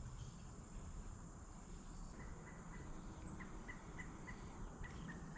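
Crickets and other insects in steady, high-pitched chorus, with a soft short chirp repeating about three times a second from about two seconds in.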